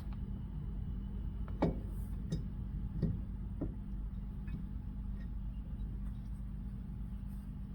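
A few light clicks and taps of metal parts and hand tools being handled while fitting a rear brake assembly, over a steady low hum.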